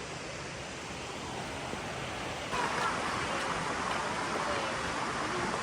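Steady rush of flowing water from a river or waterfall, growing suddenly louder about two and a half seconds in.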